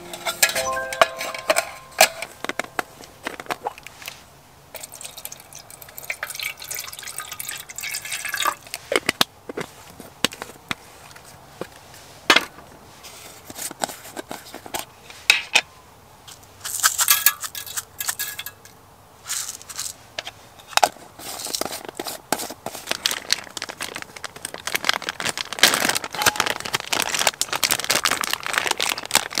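Aluminium mess tin and its wire rack being handled on a wooden table, with scattered metallic clinks and taps. In the second half comes repeated crinkling and rustling of a plastic zip bag.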